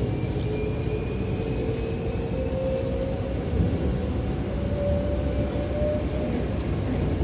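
Hankyu electric train running, heard from inside the car: a steady rumble of the wheels on the rails with a motor whine that rises slowly in pitch as the train picks up speed.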